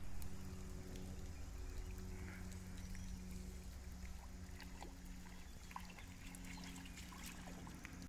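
Water trickling and running, with a faint steady low hum and a few small ticks.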